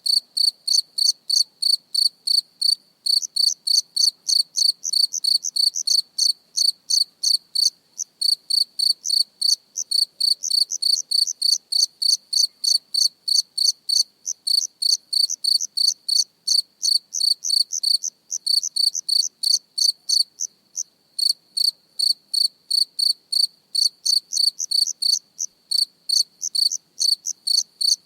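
A single cricket chirping close up: short, evenly spaced high-pitched chirps at about three to four a second, with a few brief pauses in the run.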